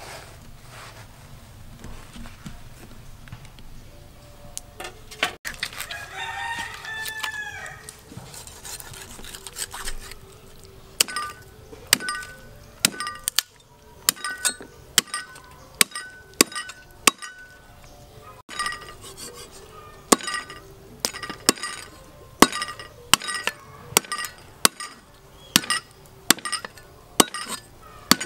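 A cleaver chopping through pork ribs on a wooden chopping block: sharp chops a little over one a second from about a third of the way in, each with a brief ringing. A rooster crows once before the chopping starts.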